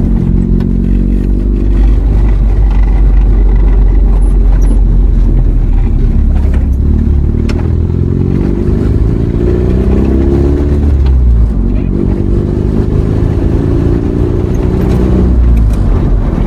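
Motor vehicle driving: a steady engine hum with road noise, the engine pitch climbing and settling several times around the middle.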